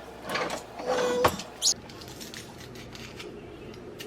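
Kitchen handling noises: a few short scrapes, a sharp clink about a second in and a brief hiss, then only faint background.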